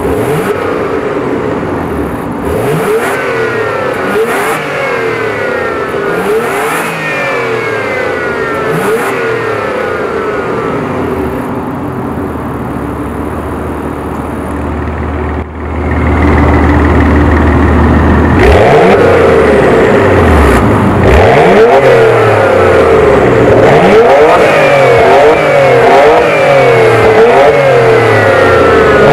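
Porsche Macan GTS twin-turbo V6 revving in about four short blips through an Fi Exhaust valvetronic exhaust with its valves closed, then settling to idle. About halfway through, the exhaust valves open and the sound becomes much louder; the engine idles, then revs several more times with the valves open.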